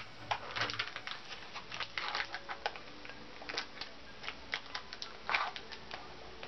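Irregular crinkling and clicking of a snack packet being handled and opened, a run of sharp crackles with brief pauses.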